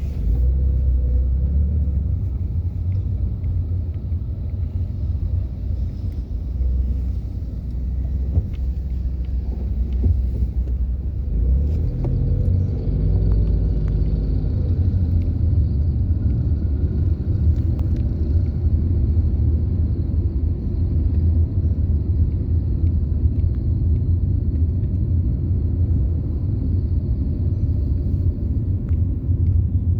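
A car being driven: a steady low rumble of engine and road noise, with a few light knocks around the middle.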